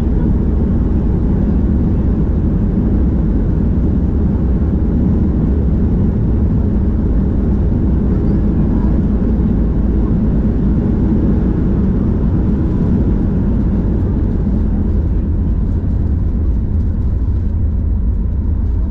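Steady low rumble of engine and airflow noise inside the cabin of a Boeing 737 MAX 8 with CFM LEAP-1B engines, coming in to land.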